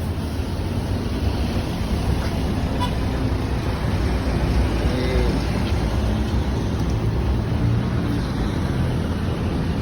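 A large bus engine running close by with a steady low rumble, mixed with road traffic noise and slightly louder around the middle.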